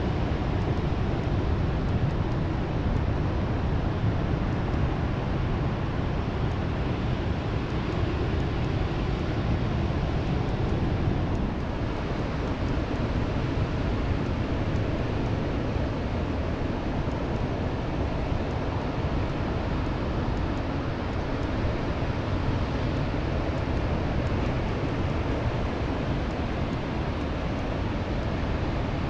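Steady wind rushing over the microphone of an electric mountain bike being ridden along, a dense low rumble with no breaks.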